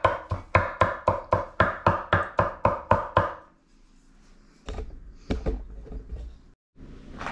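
Meat cleaver chopping cooked steak on a wooden cutting board: rapid, even knocks about four a second that stop about three and a half seconds in, followed by a few scattered lighter knocks.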